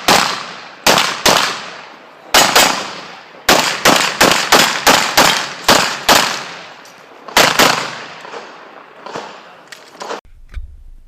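9mm Glock 17 Open-division race gun firing rapidly, mostly in quick pairs of shots (double taps), about eighteen shots in all, stopping about seven and a half seconds in. A few faint clicks follow near the end.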